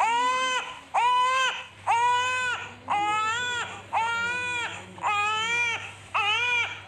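Baby crying: a run of seven wails, one about every second, each rising sharply and then holding level before it drops off.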